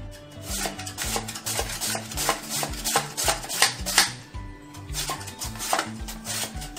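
Peeled potato being sliced on the slicing blade of a stainless-steel box grater: quick scraping strokes, about two or three a second, with a short pause about four seconds in. Background music with a steady low beat plays underneath.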